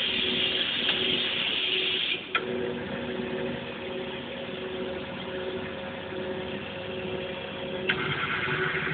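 Denso industrial robot arm with a vacuum gripper at work: a steady hiss of the vacuum suction cuts off with a click about two seconds in. The arm's motors then whine with a few steady, pulsing tones, and the hiss returns with another click near the end.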